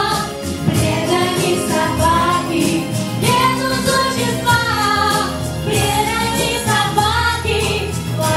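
A woman singing into a microphone over instrumental music, with a tambourine jingling along.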